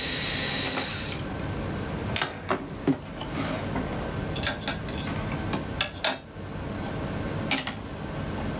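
Small metal clicks and clinks of screws and hand tools being handled while an oscilloscope's case is unscrewed, scattered and irregular. A brief screwdriver whir tails off in the first second.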